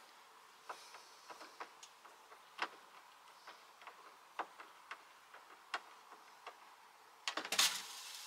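Light, irregular clicks and taps of hand work on a van's kitchen fittings as the drinking water tap is worked loose, with a louder clatter of knocks near the end.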